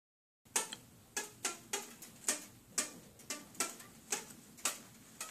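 A fishing rod struck by hand as a makeshift drum: a string of sharp taps, some with a brief ringing tone, coming unevenly about two to three times a second, beginning about half a second in.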